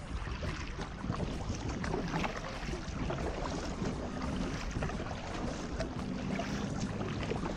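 Water splashing and lapping around a kayak as it is paddled through floodwater, with wind rumbling on the camera microphone.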